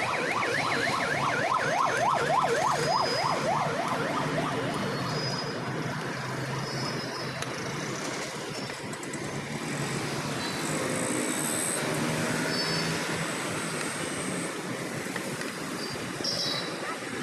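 A fast-warbling siren, its pitch sweeping up and down several times a second, heard over steady street noise and fading out about three seconds in. Faint high chirps come and go over the background.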